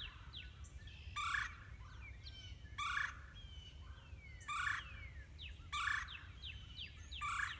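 A bird giving the same harsh call over and over, about every second and a half, with fainter chirps of other small birds between.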